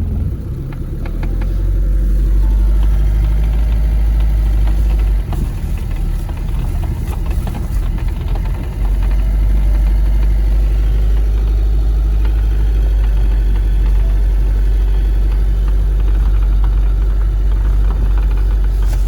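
Car in motion: a steady, loud low rumble of engine and road noise, dipping briefly twice.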